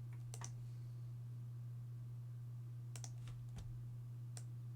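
A handful of short, sharp clicks from typing at a computer keyboard, over a steady low electrical hum.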